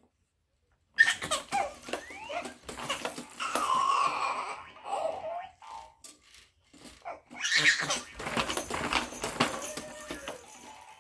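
Baby laughing and squealing in two stretches, with a short pause between them, over a run of sharp clicks and rattles.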